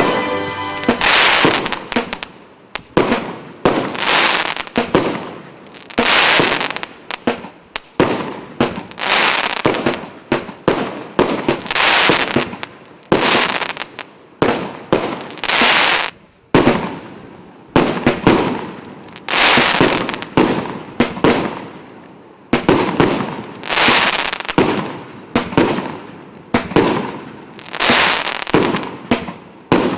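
Aerial fireworks bursting one after another, about one every second and a half. Each bang is followed by a long crackling fizz as the stars burn out.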